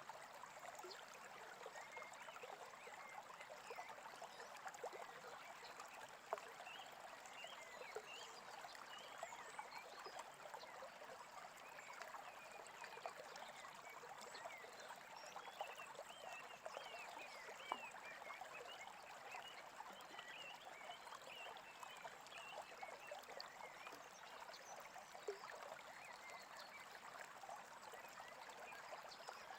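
Small stream babbling steadily, with many small birds chirping over it.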